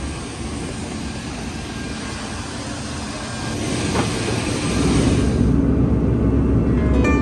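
Steady rushing noise of a jet airliner and its surroundings during boarding, then, a little past halfway, the louder, deeper rumble of the jet in flight heard from the cabin.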